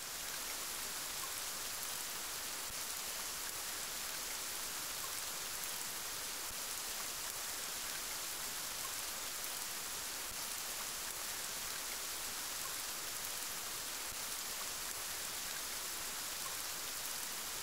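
Steady rain sound effect, an even hiss with no breaks.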